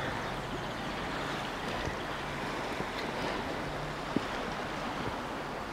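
Steady rush of the Rhône's flowing water, with wind on the microphone.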